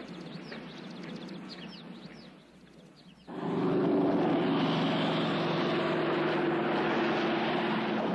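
Faint bird chirps, then about three seconds in a motor vehicle engine sound effect starts suddenly and runs steadily.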